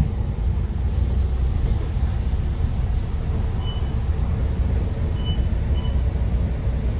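Steady low rumble of a double-decker bus's engine and road noise, heard from inside the cabin, with a few faint short high tones near the middle.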